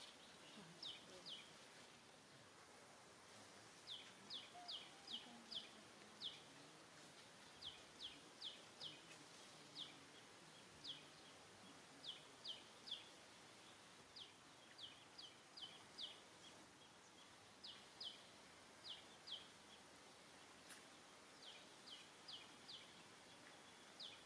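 A small bird calling faintly: high, short downward-sweeping chirps in quick runs of two to five, repeated every second or two, over a low steady background hiss.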